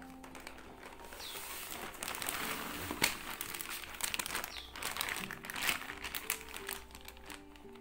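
Clear plastic zip-lock bag crinkling and rustling as it is opened and handled, with a sharp click about three seconds in. Calm electronic background music plays underneath.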